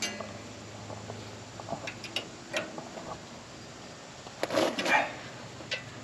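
Scattered light metallic clinks and taps of hand tools against the steel band blade and blade-guide hardware of a Wood-Mizer LT15 sawmill, with the sawmill not running, as the blade guide is adjusted. A busier, louder clatter comes about four and a half seconds in.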